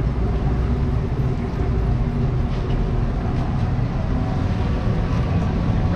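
Steady low rumble of street traffic and running vehicle engines.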